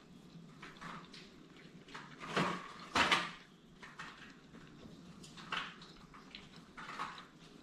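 Scattered light knocks and clatter of tableware and household handling, the loudest two close together about two and a half and three seconds in, with smaller ones later.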